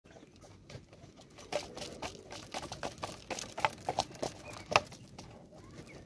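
Helmeted guineafowl pecking seed from a plastic tub: irregular sharp taps and clicks of beaks on the plastic and the seed, the two loudest a little past the middle.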